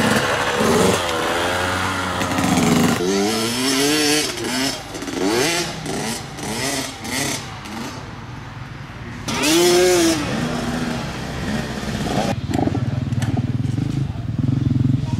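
Motocross dirt bike engines revving hard and shifting, their pitch climbing and dropping again and again as the bikes ride the track, with one loud rev about ten seconds in. Near the end an engine idles steadily.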